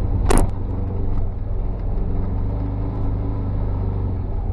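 UTV engine running steadily while driving, a low drone, with one short sharp knock about a third of a second in.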